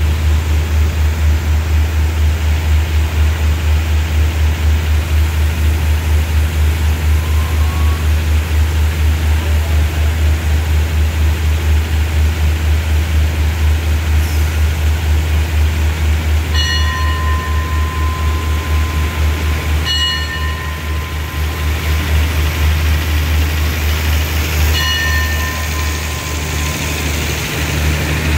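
Diesel train running steadily beside the platform, a loud low drone with a fast, even pulse. About two-thirds of the way through, a high tone sounds for a few seconds and then comes twice more briefly. The train begins to roll away near the end.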